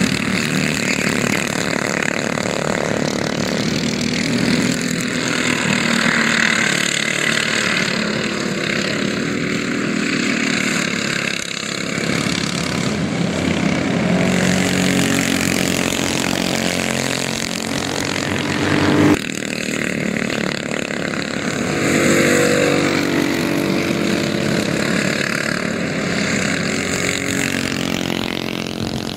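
Racing karts' small engines running at speed, their pitch rising and falling as karts pass and work through the corners. The sound changes abruptly about 19 seconds in.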